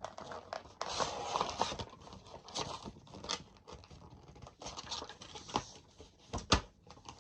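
Handling of a plastic action figure and its packaging: rustling with scattered clicks and taps, and a sharper knock about five and a half seconds in and another about a second later.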